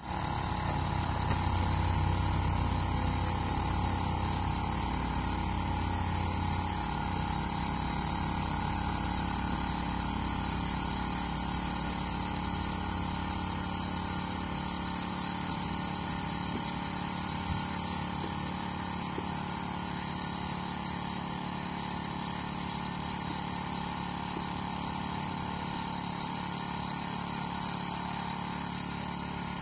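Steady drone of a running engine, heavier in the low end for the first several seconds and then settling to an even hum.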